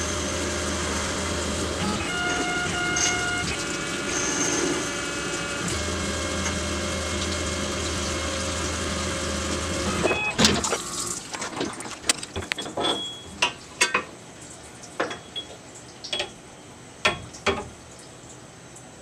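Tormach slant-bed CNC lathe facing and chamfering 304 stainless under flood coolant: a steady hiss of coolant spray over the hum and whine of the spindle, with the tones shifting a couple of times. About ten seconds in the cutting stops, and a run of sharp clicks and knocks follows as the part is handled by hand at the chuck.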